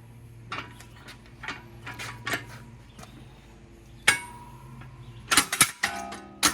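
Scattered metal clanks and knocks from the tractor's implement pins and mounting hardware being handled while an attachment is taken off. The loudest knock comes about four seconds in, followed by a quick run of clanks a little later.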